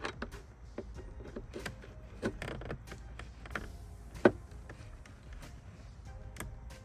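Irregular clicks and knocks of a flexible drill-shaft attachment being guided onto and worked on a hose band-clamp screw deep in an engine bay, with one sharp knock about four seconds in.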